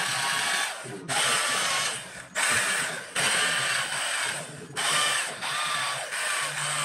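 Handheld power carving tool grinding into rosewood in repeated passes of one to two seconds each, with short breaks between them. A whine bends in pitch through each pass.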